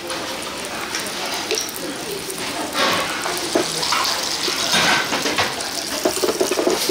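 Water running from a kitchen tap, with the clatter of utensils and dishes.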